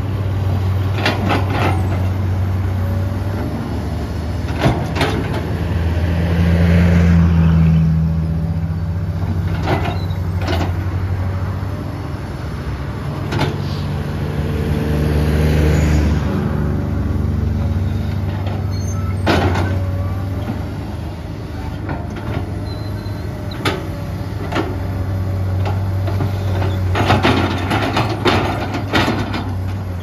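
Komatsu PC200-8M0 hydraulic excavator's diesel engine running steadily, swelling twice under heavier load as it works, with scattered sharp knocks and clanks throughout.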